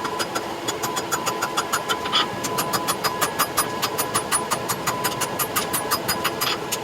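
Power hammer striking hot steel in a rapid run of sharp metal blows, about five a second, over the steady hum of the machine, as spike heads are forged into domes for nail headers.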